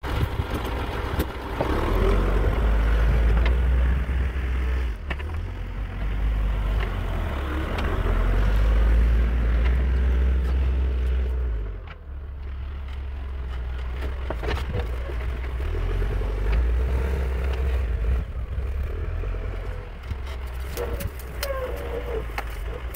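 Caterpillar backhoe loader's diesel engine running under load as the machine drives over a pile of wood chips, its revs rising and falling and easing off briefly about halfway, with scattered knocks from the machine.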